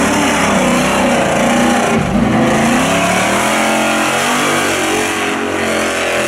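Off-road race truck's engine revving hard under full throttle, its pitch climbing and dropping again and again as the driver gets on and off the gas.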